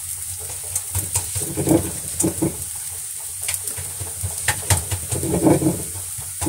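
Thin sheet of oiled trid dough sizzling on a hot flat griddle, a steady high hiss with scattered small crackles, as the sheet browns.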